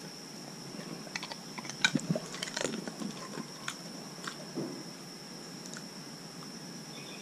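Dog crunching and chewing a dried banana chip: irregular crisp crunches, thickest over the first few seconds and thinning out toward the end.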